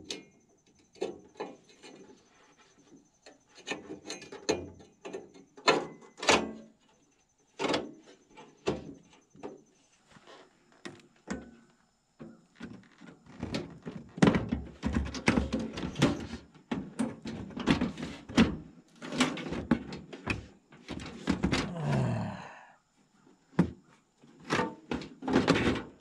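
Irregular knocks, thunks and scraping of sheet metal as the Atwood 8531-III RV furnace's casing and exhaust pipe are handled and worked back into the furnace opening. Near the end comes a drawn-out scrape that falls in pitch.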